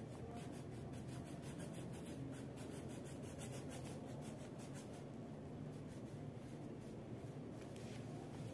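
Red wax crayon scratching back and forth on paper in quick strokes as a child colors. The strokes thin out after about four seconds, over a steady low hum.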